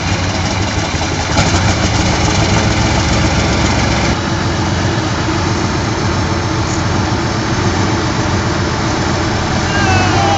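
The V12 diesel from a Russian T-55 tank, fitted to a giant motorcycle, running steadily without revving. A wavering whistle-like tone joins it near the end.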